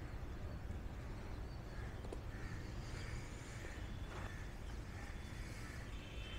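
Quiet outdoor ambience: a steady low rumble with a few faint, distant bird calls in the middle.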